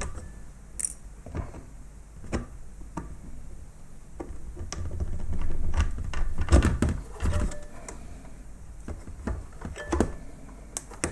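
Clicks and knocks of a robot vacuum cleaner's plastic parts being handled and taken apart, with a louder stretch of rattling about six seconds in.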